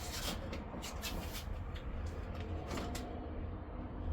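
Irregular clicks, knocks and scrapes of car body parts being handled and pulled apart during a bumper teardown, over a steady low hum.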